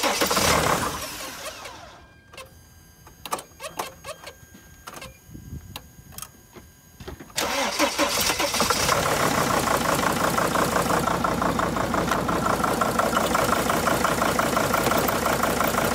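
Mercedes T1N Sprinter's five-cylinder common-rail diesel cranking on the starter. It goes quiet for a few seconds apart from small clicks, then catches about seven seconds in and runs rough, like a tractor: the engine computer doesn't like the newly fitted injector, which has no valid code programmed.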